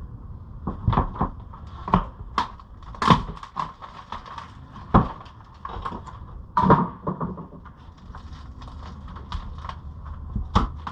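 Irregular knocks, cracks and scrapes of rotten wood being pried and torn off a house wall, with several louder sharp cracks.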